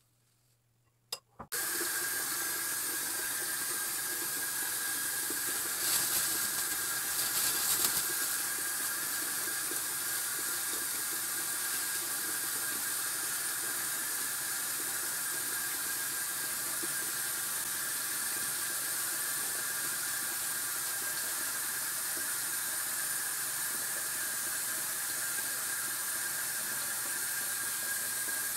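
Steady rushing hiss like water running from a tap, starting abruptly about a second and a half in and cutting off right at the end, with a faint high tone running through it and a brief louder swell between about six and eight seconds.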